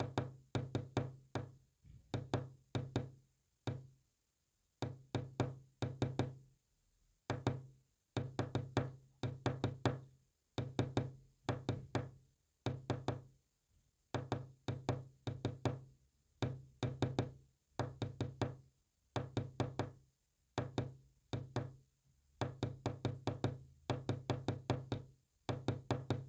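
Morse code sent as short, low-pitched buzzing tones, each with a sharp click at its start. The tones come in quick bunches of dots and dashes separated by brief pauses, and keep going without a break in the pattern.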